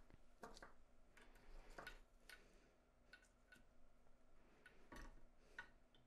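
Faint, scattered light clicks and ticks of small metal parts being handled: a freshly soldered quarter-inch jack plug being taken out of the alligator clip of a helping-hands stand.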